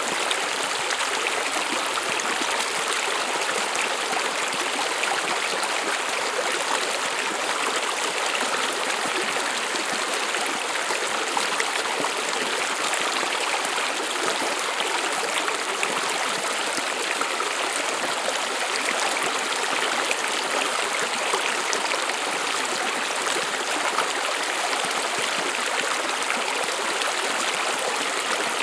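A brook running: steady babbling and trickling of water flowing over stones, without any pause.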